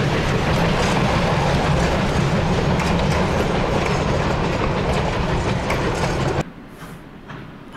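Durango & Silverton narrow-gauge train passing close, its car wheels clattering loudly over the rail joints. About six and a half seconds in, the sound cuts off abruptly to a much quieter stretch with faint, evenly spaced beats.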